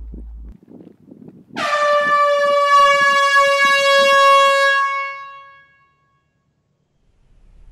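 A loud single held note, rich in overtones, that starts suddenly, holds about three seconds and fades out, over soft low thuds in a steady beat.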